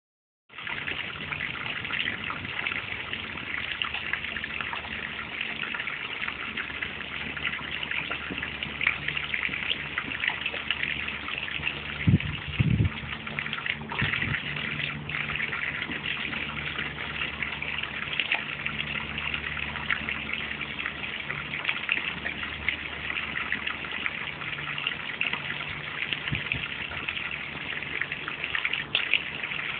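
A garden hose's jet of water splashing steadily into a pond, with a brief low thump about twelve seconds in.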